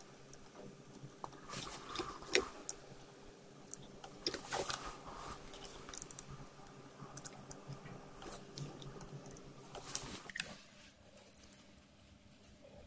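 Faint workbench handling noises while soldering wires to an amplifier board: scattered small clicks, taps and crackles of the soldering iron and wires against the circuit board. A faint steady hum runs underneath and stops about ten seconds in.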